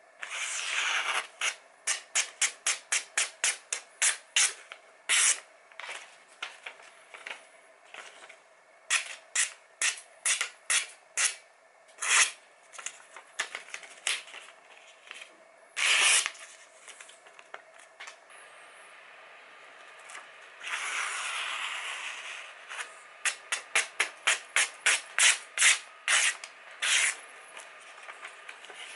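A freshly sharpened kitchen knife slicing through a sheet of catalogue paper in a paper-cutting sharpness test. Each cut is a short, crisp swish, coming in quick runs of about three a second, with a few longer drawn-out cuts.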